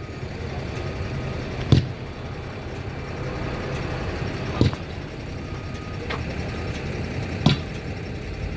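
Heavy vehicle engine running steadily, with a sharp loud knock about every three seconds and faint intermittent beeping.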